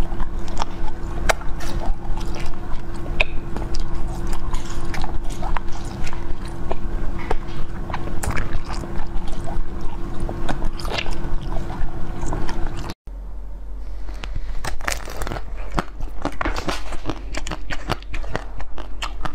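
Close-up biting and chewing of hard ice, with many sharp cracks and crunches. A steady low hum runs under the first part. The sound drops out for a moment about thirteen seconds in, then the crunching resumes.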